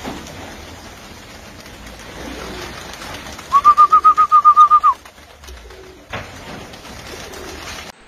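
A flock of pigeons in flight around a pole perch, heard against a steady rushing noise. About three and a half seconds in, a loud, rapid trill of about a dozen even, high notes lasts just over a second.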